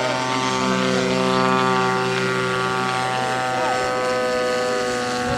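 Engine of a 50cc radio-controlled flying-pipe model aeroplane running steadily in flight, a continuous propeller drone that holds its pitch.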